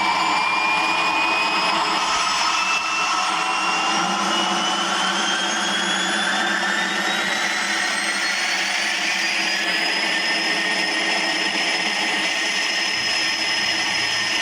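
Steady mechanical whine over a rushing noise, its pitch climbing slowly and evenly throughout; it cuts off abruptly at the end.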